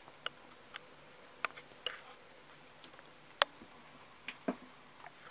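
Scattered light clicks and ticks at irregular intervals over a faint steady hiss, the sharpest about three and a half seconds in.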